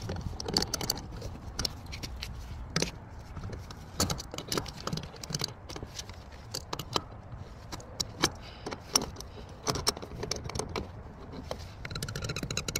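Irregular metallic clicks and clinks of hand tools working a hose clamp and brass valve fittings as a hose is fastened to a water tank outlet, over a low steady rumble.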